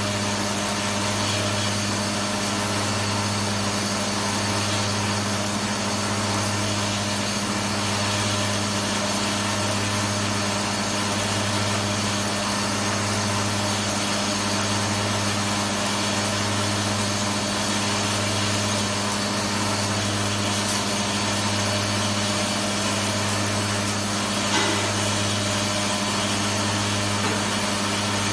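Vibratory bowl feeder for rivets running: a steady low hum from its drive, with the constant rattle of steel rivets shaking up the bowl's spiral track and along a single linear track. One brief click near the end.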